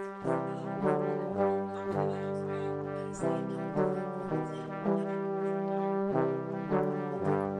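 Background music: a melody of held notes that change pitch about once a second over lower sustained notes.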